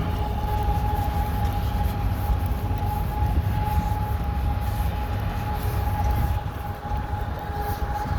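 Grangemouth industrial warning siren sounding one steady, unbroken tone over a constant low rumble.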